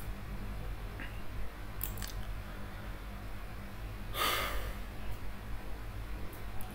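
Room tone: a steady low electrical hum from the recording setup, with a few faint clicks and a short rushing noise, like a breath, about four seconds in.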